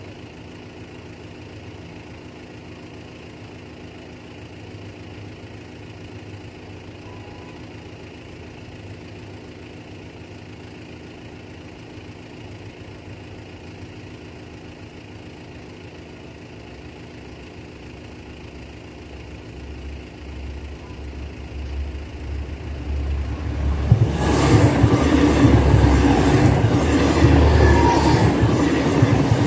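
Irish Rail 29000 Class diesel multiple unit approaching and passing at speed: its sound swells over the last third and is loud near the end, with rapid clicks of the wheels over the rail joints. Before it, a steady low hum.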